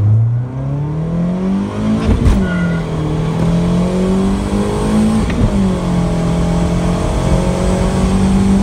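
Turbocharged Honda Civic four-cylinder at full throttle under boost, heard from inside the cabin: the revs climb, drop at a gear shift about two seconds in and again about five seconds in, then climb again. The clutch can no longer keep up with the raised boost, and the owner reads the shifts as the Stage 1 clutch slipping.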